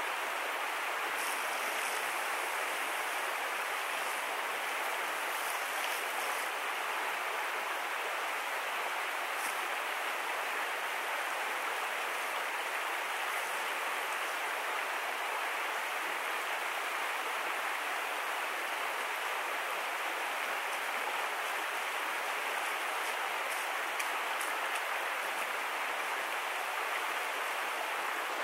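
River water flowing, a steady, even rush.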